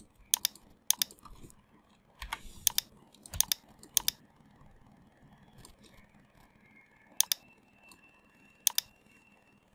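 Computer mouse clicks: about eight short, sharp clicks spaced irregularly, some in quick pairs, as shapes are selected and drawn.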